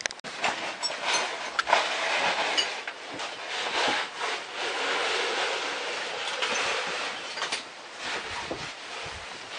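Caver descending a rope down a narrow rock shaft: a steady rasp of the rope running through the descender, with many small clicks and scrapes of his gear and suit against the rock.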